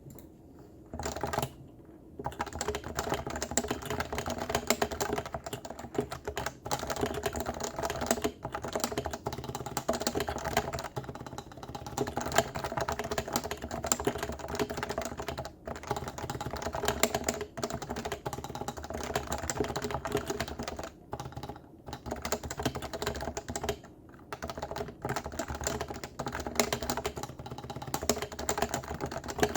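Stock Leopold FC660C keyboard with Topre electrostatic capacitive switches being typed on fast and continuously, a dense stream of keystrokes with a deep thock. There are a few brief pauses.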